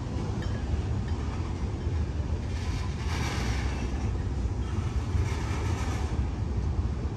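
Freight cars of a long CSX train rolling past: a steady low rumble of steel wheels on rail. A higher rushing sound swells and fades about three seconds in, and again near the end.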